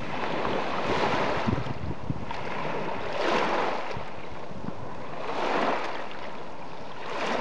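Waves breaking on a loch's pebble shore, surging about every two seconds, with wind on the microphone.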